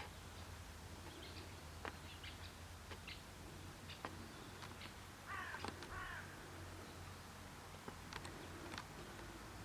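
Faint animal sounds: scattered sharp clicks and one short harsh call about five and a half seconds in, over a steady low hum.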